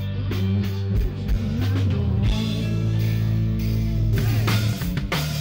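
A rock band playing live: electric guitar over bass guitar and a drum kit keeping a steady beat. The drum hits thin out for a couple of seconds in the middle while the held guitar and bass notes carry on.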